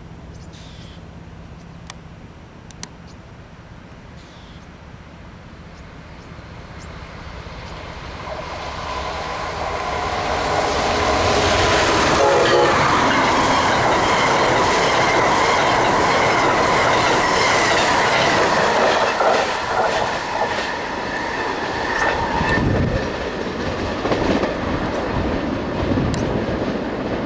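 Amtrak passenger train hauled by an electric locomotive passing through at speed. The rumble of its wheels on the rails builds over the first ten seconds, stays loud for about ten seconds as the cars go by, then eases as the train pulls away.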